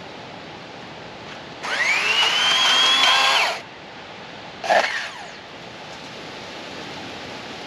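Master Force 80-volt battery chainsaw's electric motor whining up to speed, held for about two seconds and released, then a short second blip of the trigger about a second later.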